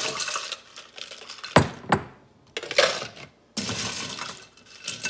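Ice cubes dropped into a plastic cup, clattering in several separate bursts.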